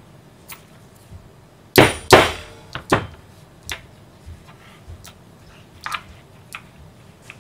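Two loud, sharp knocks of hard objects striking the work surface about two seconds in, a third a moment later. Then scattered light clicks and taps as leather and small metal snap-fastener parts are handled on the desk.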